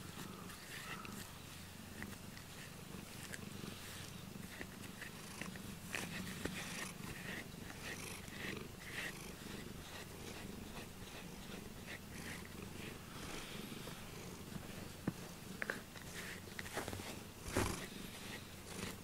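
Domestic cat purring steadily while being groomed with a brush, the brush strokes rasping softly through its fur, with a brief louder rustle near the end.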